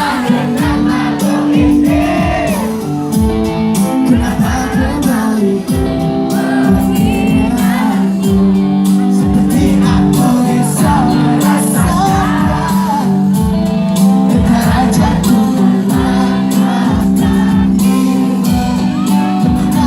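Live pop-rock band playing with a lead singer, drums beating steadily under sustained bass notes, with shouts from the audience.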